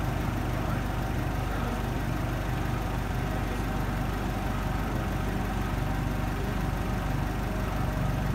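Propane-fuelled Nissan forklift engine idling steadily.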